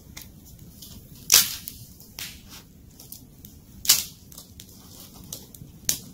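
Small stick campfire crackling with many sharp little pops, with three louder short crunches: about a second in, near the middle and just before the end.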